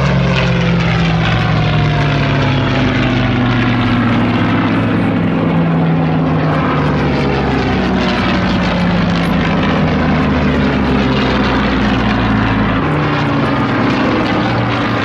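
Piston-engined WWII fighters, Hispano Buchons and Yak-3s, running hard with their V12 engines as they fly past overhead. Several engine notes overlap, and their pitch falls as the aircraft pass.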